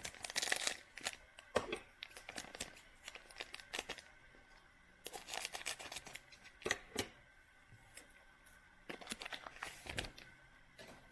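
Trading cards and foil pack wrapper being handled: bursts of rustling and sliding with light clicks and taps, in several clusters.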